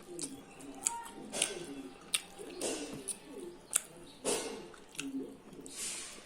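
Close-up eating sounds: wet chewing and lip smacking with sharp mouth clicks while eating pulao and chicken curry by hand. Pigeons coo softly in the background.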